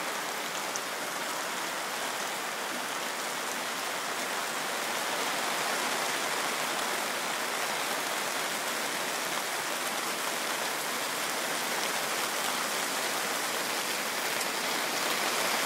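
Pouring rain falling steadily on a wet gravel campsite, a dense, even hiss that swells slightly a few seconds in.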